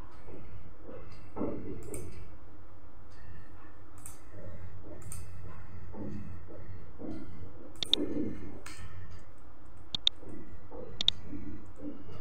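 Computer keyboard being typed on: irregular soft key taps, with a few sharper clicks in the second half, over a steady low hum.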